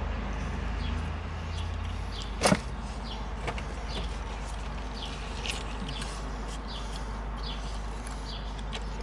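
Steady low rumble of background noise with many faint, short high chirps throughout, and one sharp knock about two and a half seconds in.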